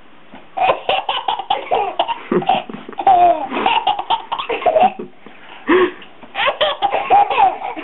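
Baby laughing in quick repeated bursts, in two bouts with a short pause about five seconds in.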